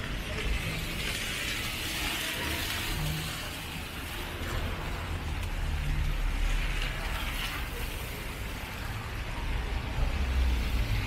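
Rainy city street ambience: a steady hiss of rain and wet street noise over a low, uneven rumble of traffic.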